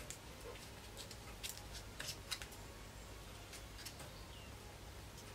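Faint, scattered small clicks and scratches of fingers and fingernails working a piece of Apple Watch sport band, trying to slide it into place. A low steady hum runs underneath.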